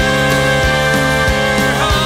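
Country song playing as a soundtrack: a long held note over a steady drum beat, with no words sung.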